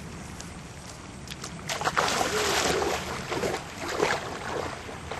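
Water sloshing and splashing as people wade waist-deep through the water, loudest from about two to four and a half seconds in, over a steady low rumble.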